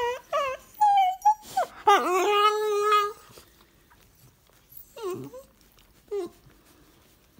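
A tricolour (Prince Charles) Cavalier King Charles spaniel making a run of whining, moaning yowls that bend up and down in pitch, the last held steady for about a second. After a pause, two short yowls follow about five and six seconds in.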